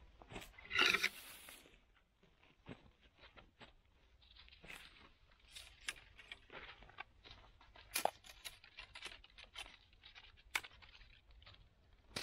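Footsteps crunching on dry pine straw while dead branches and sticks are picked up and tossed aside, making scattered crunches and clicks. There is one louder rustling crash of brush about a second in.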